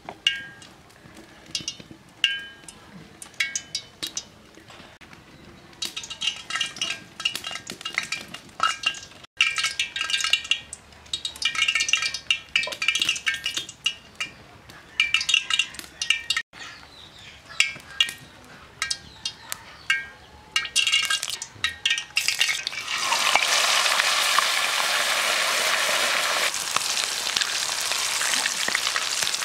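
Scattered metallic clinks and scrapes, then near the end a loud, steady sizzle as a whole marinated chicken deep-fries in hot oil in an iron kadai.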